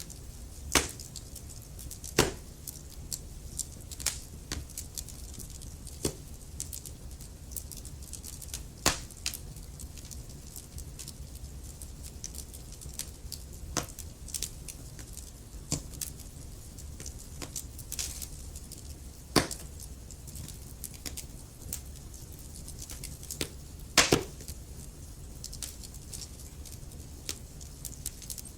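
Wood fire of burning logs crackling: a steady low rumble of flames with scattered sharp pops and snaps, a few louder ones standing out, such as about a second in and near the 24-second mark.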